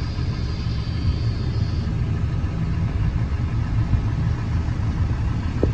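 Hino 300 Series 616 truck's diesel engine idling steadily, heard as a low rumble from inside the crew cab.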